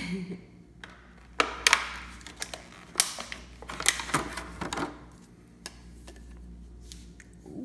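Clear plastic blister packaging crackling and clicking as a flashlight and its battery are pulled out of the tray, a run of sharp clicks and crinkles from about a second and a half in until about five seconds in.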